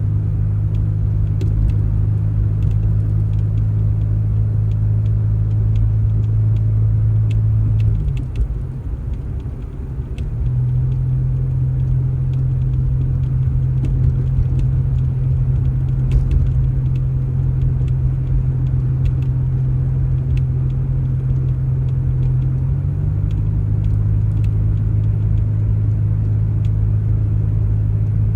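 Engine running at a steady speed. About eight seconds in it falls away briefly and unevenly, then runs at a slightly higher pitch until about twenty-three seconds in, when it settles back to its first pitch.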